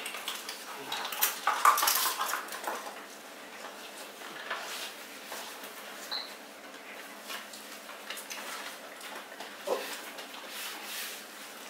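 Scattered clicks and rustles of cardboard chicken nugget boxes and small plastic sauce cups being handled on a table while people eat, busiest in the first few seconds.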